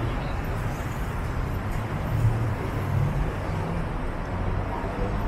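Steady city road traffic: a low rumble of car and vehicle engines running along the street, swelling a little a couple of seconds in.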